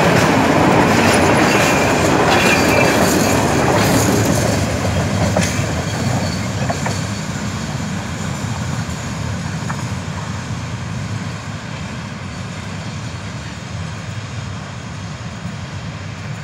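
Freight train of oil tank wagons passing close by, wheels clattering on the rails with a brief squeal. About four seconds in, the last wagon passes and the train's rumble fades steadily as it moves away.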